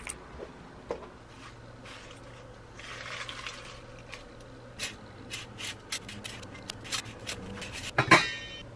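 Kitchen food-prep handling: dry onion skins and celery leaves rustling in a stainless steel bowl, with scattered small clicks. About eight seconds in, a stainless steel pot lid clanks and rings briefly, the loudest sound.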